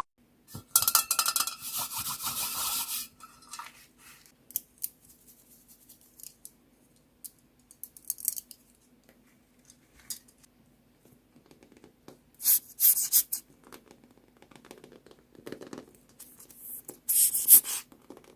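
Small plastic beads rattling and pouring in bursts: a long clattering pour near the start, scattered single clicks, then two shorter louder rattles near the end, over a faint steady hum.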